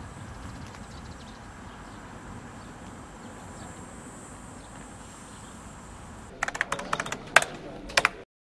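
Outdoor field ambience with a low, wind-like rumble on the microphone; about six seconds in, a quick run of sharp clicks and taps lasts about two seconds, and the sound then cuts off abruptly.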